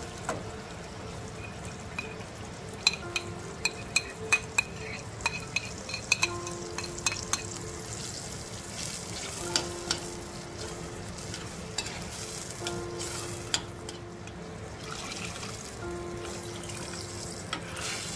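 Metal spoon stirring split chickpeas into a sizzling tomato sauce in a stainless steel saucepan, with repeated sharp clinks of the spoon against the pan, thickest in the first half.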